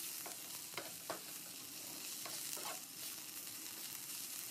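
Amaranth greens frying in a nonstick pan with a faint, steady sizzle, while a spatula stirs through them with several soft scrapes.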